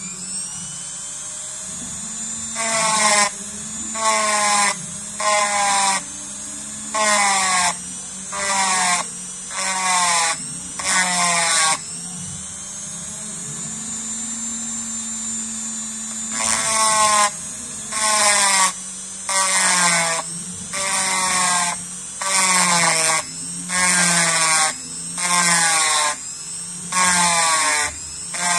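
Handheld rotary tool running with a steady high whine while its burr grinds the inside of a hollow brass part in short strokes about once a second, each contact a louder grinding screech. The strokes pause for a few seconds near the middle while the tool keeps running.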